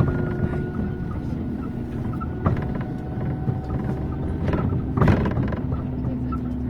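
Inside a moving city bus: a steady low rumble of the bus running over the road, with two short knocks, about two and a half and five seconds in, the second the louder.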